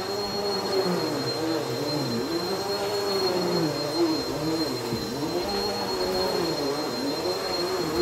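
Bagless upright vacuum cleaner running on carpet. Its motor hum dips in pitch and recovers about once a second as it is pushed back and forth, over a steady high whine.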